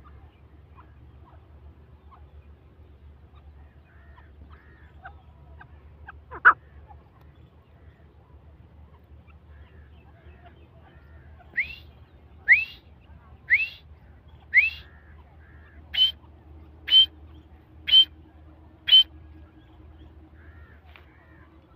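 Teetar (grey francolin) calling: one loud call about six seconds in, then a run of eight loud, piercing calls about one a second, the first four sweeping upward in pitch and the last four sharper and higher.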